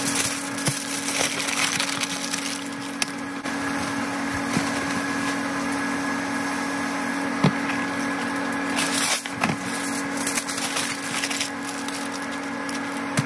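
Aluminium foil crinkling and crackling as it is wrapped around potatoes, with sharp crackles here and there over a steady low hum.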